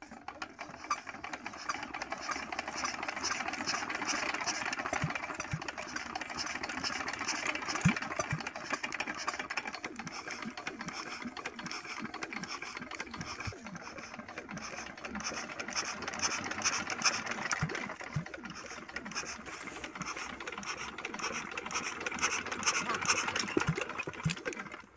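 Small old diesel engine running steadily with a fast, even mechanical clatter.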